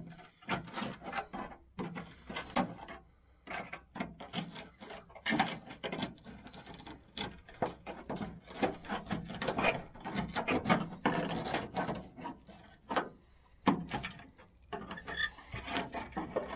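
Rusted sheet steel being cut out of a car's rear wheel well: irregular crunching and scraping strokes with short pauses, including a quieter gap about three seconds in.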